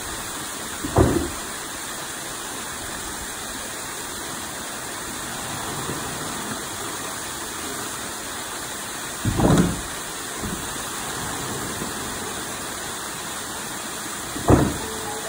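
Water running and spilling steadily over the wooden beams of karausu, water-powered clay-crushing hammers, into a stream. Three dull thuds, the loudest sounds, come about a second in, near the middle and near the end as a beam tips and its pestle drops onto the clay.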